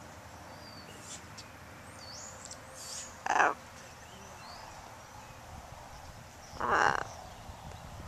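Pet macaw giving two loud, harsh squawks, about three and a half and seven seconds in, with faint chirps of small birds before them.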